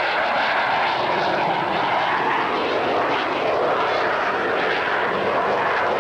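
Twin Pratt & Whitney R-1830 radial engines of a PBY Catalina (Canso) flying boat running at a steady level.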